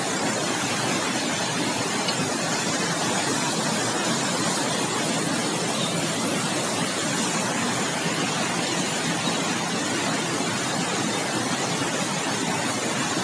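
Flash-flood water rushing across a road, a steady unbroken rush of noise that does not change.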